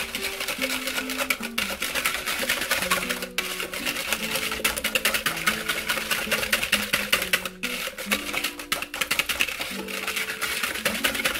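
Wire whisk beating eggs and sugar in a plastic measuring jug: a fast, steady run of light clicks and scrapes of the wires against the jug, over background music.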